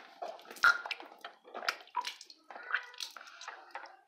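A person gulping and gurgling water in the mouth and throat, a string of irregular short wet swallowing and sloshing noises.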